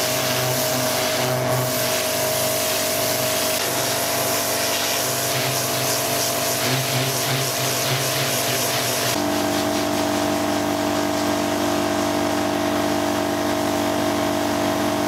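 Electric pressure washer running: a steady motor and pump hum under the hiss of the high-pressure water jet spraying onto the bodywork, with a change in the hum's tone about nine seconds in.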